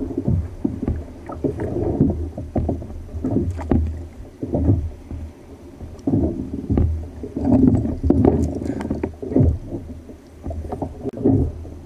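Choppy sea water slapping and sloshing against the hull of a fishing kayak in irregular surges, with a few light knocks.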